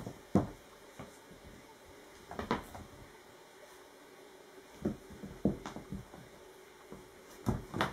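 Two Bengal kittens play-fighting on a wooden floor: irregular thumps and scuffles as their paws and bodies bump the boards, about five knocks with quieter stretches between.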